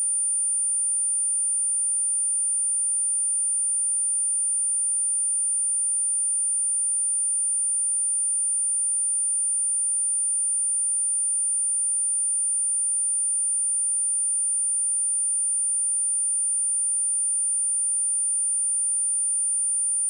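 A single steady, high-pitched 9241 Hz sine-wave test tone, held at an even level without change.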